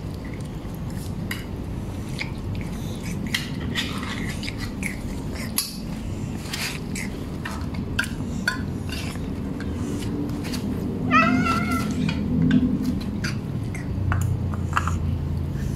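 Tortoiseshell cat eating dry kibble from a plastic tray, with short crunching clicks, and the clink and scrape of a tin can as wet food is tipped out onto the tray. One meow about eleven seconds in is the loudest sound.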